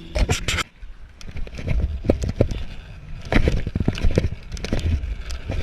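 Root Industries Lithium stunt scooter rolling on skatepark concrete. A quick run of sharp clacks comes just after the start. From about three seconds in, a string of knocks and scrapes follows as a trick is ridden and landed.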